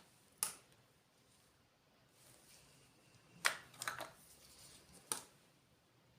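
Sharp clicks and taps of small plastic toy pieces being handled: one about half a second in, a quick cluster a little past the middle, and one more near the end.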